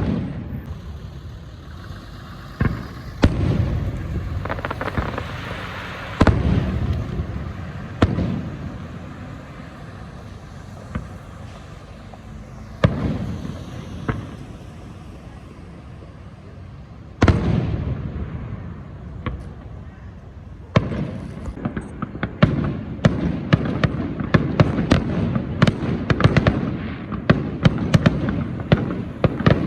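A series of loud, sharp bangs, each followed by a long echoing fade, then a dense run of rapid crackling pops near the end.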